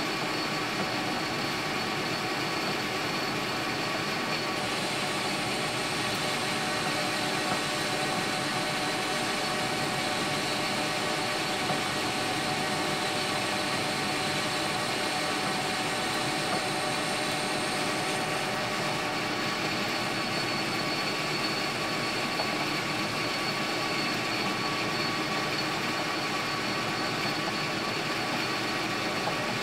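Metal lathe running steadily while a cutting tool turns down the outside of a brass bushing blank. A steady machine hum with several fixed tones, and a high hiss that comes in a few seconds in and drops away a little past halfway.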